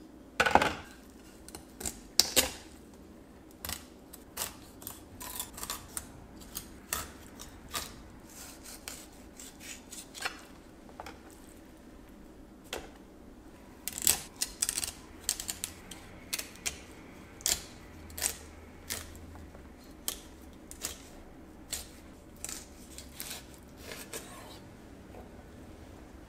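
Knife work on a cutting board while filleting trout: irregular sharp clicks, taps and light scrapes of the blade and utensils, the loudest knocks in the first couple of seconds.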